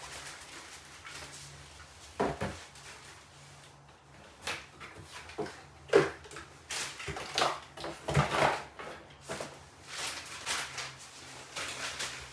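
Cardboard boxes, plastic bags and packed drum-kit parts being handled: irregular knocks, clatters and rustling, with the loudest knock about six seconds in.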